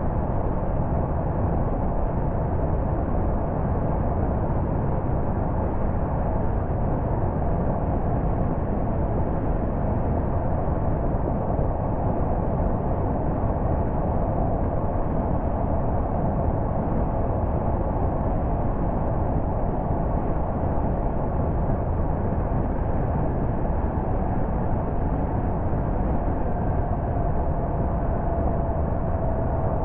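Steady road and engine noise from a car driving along, with a faint tone that eases slightly lower in pitch near the end.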